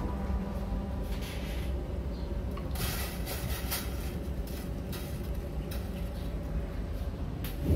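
A knife scraping and tapping against a ceramic plate as chopped onion and ginger are pushed off it into a steel pot of boiling water. There is a cluster of clicks and scrapes about three seconds in and a few single taps later, over a steady low rumble.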